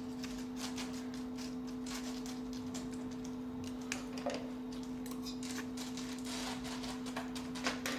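A steady electrical hum from nearby equipment, with scattered light clicks and taps from the Velcro tape and slitter head being handled.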